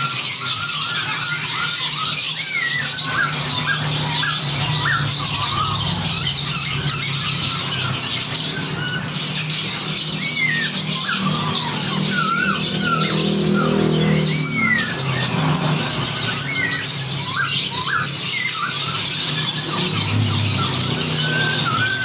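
A dense chorus of many songbirds chattering and calling over one another, full of short whistled notes that swoop up and down, over a steady low drone.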